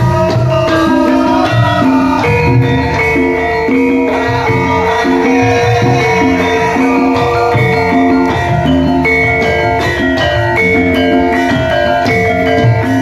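Javanese bronze gamelan playing a gending: struck bronze metallophones ringing out a steady, interlocking pattern of notes over repeated low beats.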